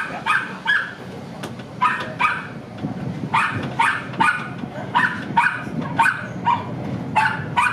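Tram under way: a low rumble with a short, sharp, ringing clack repeating regularly about three times a second.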